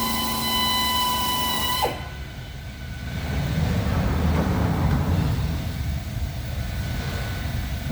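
A machine's steady high whine, made of several even tones, shuts off about two seconds in, its pitch falling as it winds down. A low rumble then swells up and holds.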